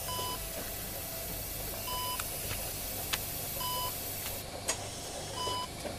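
Electronic patient monitor beeping: four short, clear beeps about two seconds apart over a low steady hum, with a couple of faint clicks between them.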